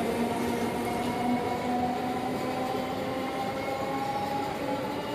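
Indian Railways EMU local train running along the platform track, with a steady whine over rail and wheel noise, slowly fading as it draws away.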